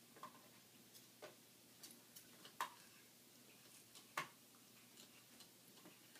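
Yorkshire terrier puppy gnawing on a bone: faint, irregular clicks of teeth on the bone, with two louder clicks about two and a half and four seconds in.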